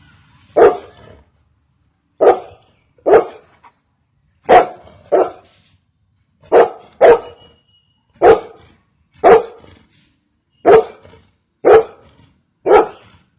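Golden retriever barking repeatedly: about a dozen short barks, roughly one a second, some coming in quick pairs.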